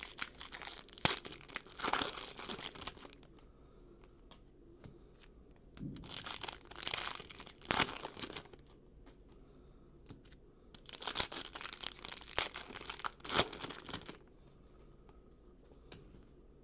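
Foil trading-card pack wrappers being torn open and crinkled by hand, in three bursts of a few seconds each with sharp crackles.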